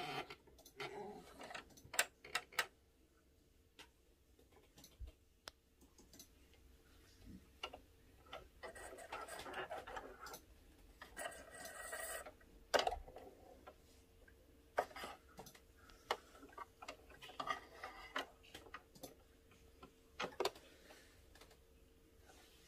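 Scattered light clicks and short rustling stretches from hands working a domestic sewing machine, as threads are drawn through under the presser foot.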